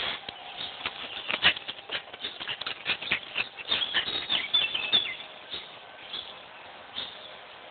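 A ball being nosed and pushed along concrete pavement by a puppy: irregular rustling, scraping and tapping, busiest in the middle, with a few brief high squeaks about four seconds in.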